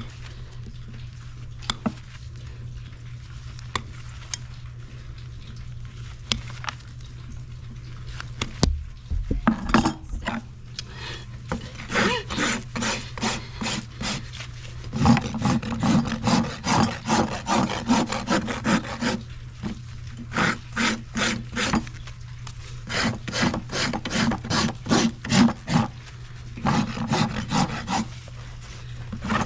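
Hoof rasp being drawn across a horse's hoof during a trim: runs of repeated rasping strokes, about two or three a second, broken by short pauses. The first several seconds hold only a few scattered small knocks before the rasping starts.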